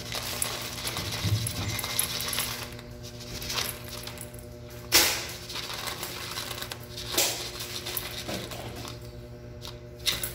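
Dry dog kibble poured from a plastic cup into stainless steel dog bowls, the pellets rattling and clattering against the metal. A few sharper clinks stand out about five seconds in, about two seconds later and near the end.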